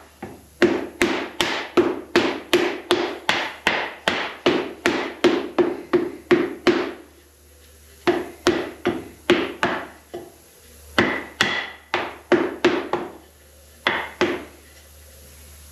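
Hammer blows on a wooden board laid on top of a sand-mold flask. A fast, even run of strikes, about three a second, each with a short ring, pauses about seven seconds in, then starts again and ends with a single blow near the end.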